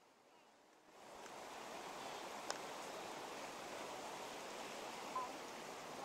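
Rushing water of a fast-flowing river, a steady noise that fades in about a second in, with a single light click near the middle.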